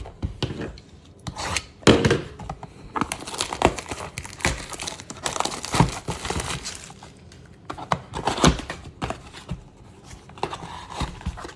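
Trading-card blaster boxes being unwrapped and torn open by hand: an irregular run of plastic wrap and cardboard tearing and crinkling, with sharper rips about two seconds in and again near the end.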